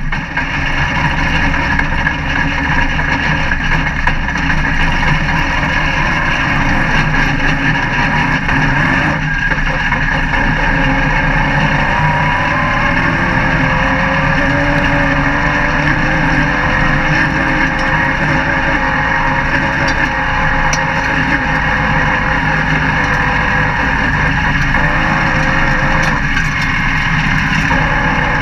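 Dirt-track race car engine running hard at racing speed, heard from inside the open cockpit, with wind and road noise mixed in. The engine pitch rises and falls slowly as the throttle changes.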